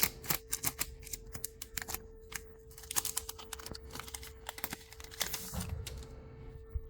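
Trading-card booster packs and cards being handled by hand: crinkling foil wrappers and quick clicking, rustling cards, in irregular bursts.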